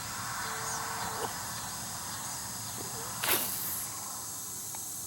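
Outdoor pond ambience with a steady high insect hum, broken by one short whoosh about three seconds in.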